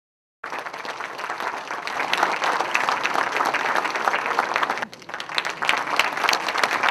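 Audience applauding, a dense patter of many hands clapping. It starts abruptly about half a second in, drops off briefly about five seconds in, then picks up again.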